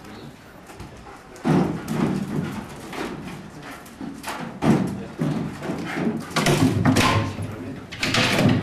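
German shepherd playing rough with its handler over a toy on a rope: several loud bursts of dog noise mixed with thumps and scuffles, the first about a second and a half in and the last near the end.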